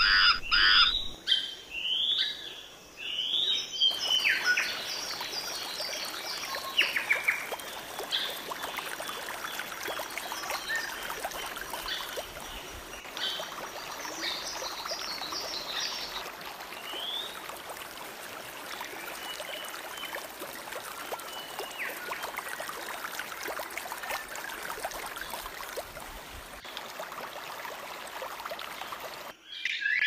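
Birds calling and chirping in the forest over the steady rush of running water from a stream, with a few quick runs of high, rapidly repeated notes.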